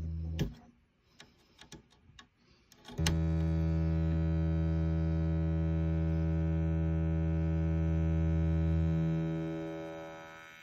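Steady synthesizer drone through an Erica Synths Black Multimode VCF. It cuts off with a click as the patch cable is unplugged, a few plug clicks follow, and it returns about three seconds in from the filter's high-pass output. From about nine seconds it fades away from the bass upward as the cutoff is turned up.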